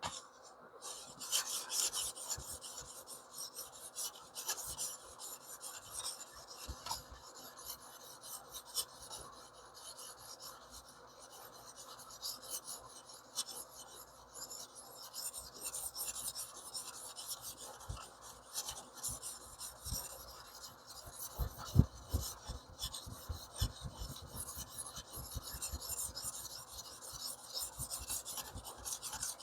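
Sharpening stone on a TS Prof Kadet Pro guided sharpener stroked repeatedly along a small cleaver-shaped knife's edge: a continuous rasping scrape made of many short passes, with a few soft knocks about two-thirds of the way through.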